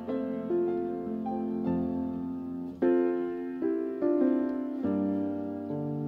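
Background music played on piano, a calm melody with notes and chords struck roughly every half second to second and left to ring and fade.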